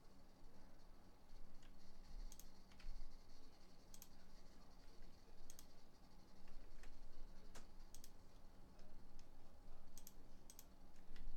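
Scattered clicks of a computer mouse, a dozen or so at uneven intervals, over a faint steady hum.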